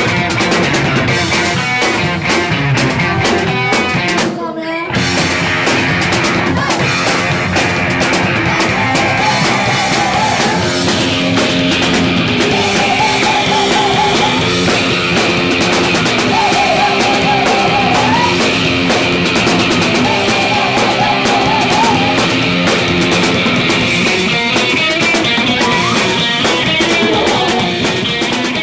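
Live punk rock band playing loud, with electric guitar and drum kit, breaking off briefly about four and a half seconds in before crashing back in. A short repeated phrase sounds four times in the second half.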